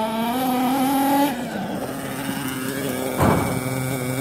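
Small nitro engine of a Maximus GP RC monster truck running at a high steady pitch. It revs up about half a second in and drops back after about a second, a short sharp knock comes about three seconds in, and then it settles to a lower idle.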